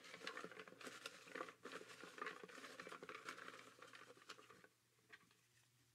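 Folded paper name slips rustling and crinkling as a hand rummages through a giveaway box to draw one, a faint crackle that stops about a second before the end.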